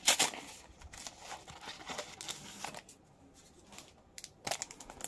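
Yu-Gi-Oh booster pack packaging being handled: crinkling and rustling of foil wrappers and a cardboard-backed blister pack, in short bursts, with a quiet gap about three seconds in and more crinkling near the end.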